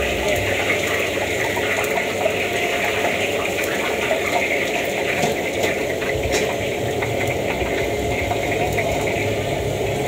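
Steady hiss and bubbling of hot liquid in a large steel wok over a strong burner flame, stirred with a metal ladle, with a few scattered clinks of the ladle against the wok.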